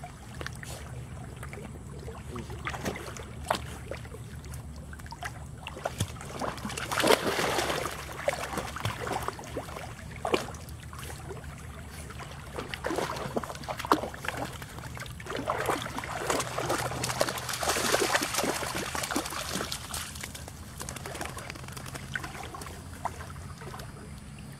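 Water splashing and lapping as Labrador puppies paddle, in irregular small splashes that grow busier about seven seconds in and again around fifteen to eighteen seconds, over a steady low rumble.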